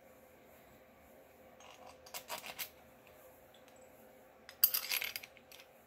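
Small metal clicks and clinks as bolts and the water pump cover are handled and fitted onto a motorcycle engine by hand, in two short bursts, the louder one about four and a half seconds in.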